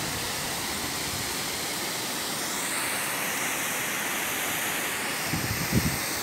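Steady rushing of water pouring over a low concrete irrigation weir. A few short low bumps come about five seconds in.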